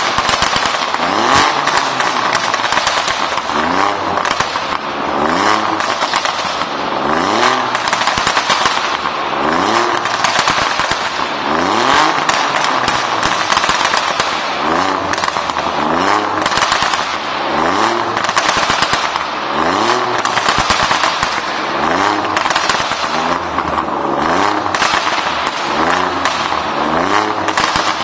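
Alfa Romeo Giulia Quadrifoglio's twin-turbo V6 revved again and again while standing, a quick blip about every second and a half. The exhaust pops and crackles hard as the revs fall after each blip.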